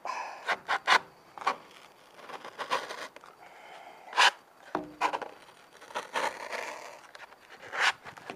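Knife blade forced through rigid cured foam mixed with fiberglass resin, grating and scraping in uneven strokes with several sharp cracks as the hard material resists the cut.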